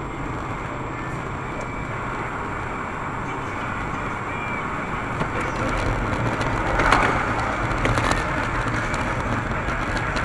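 Steady road and engine noise inside a moving car at highway speed, recorded by a dashcam, with a few faint ticks and a louder rush of noise about seven seconds in.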